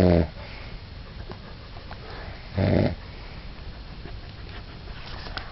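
Snoring: two short, pitched snores about two and a half seconds apart, the first right at the start and the second a little after two and a half seconds in, with quiet breathing between.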